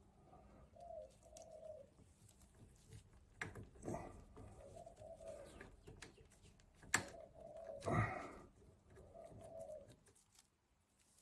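A dove cooing in short low phrases, four times, over sharp knocks and clinks from hand work, the loudest about two-thirds of the way in.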